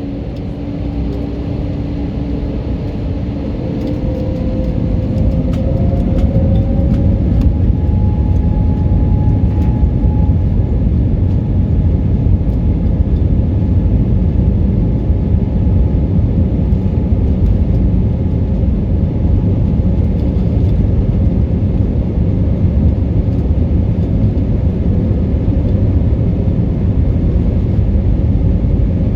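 Airbus A320neo jet engines spooling up to takeoff thrust, their whine rising in pitch over a few seconds as the level climbs, then a loud steady rumble of full-power takeoff roll.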